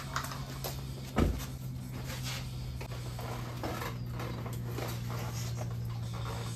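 A motorcycle being handled and wheeled by hand: a heavy clunk about a second in, then light knocks and clicks from the bike, over a steady low hum.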